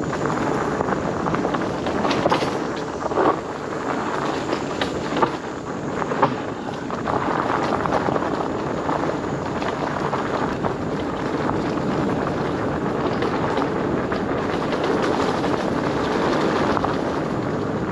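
Steady rumble and rattle of a Himiway Cobra fat-tyre e-bike riding fast over a dirt trail, with sharp knocks as it jolts over bumps, most of them in the first six seconds.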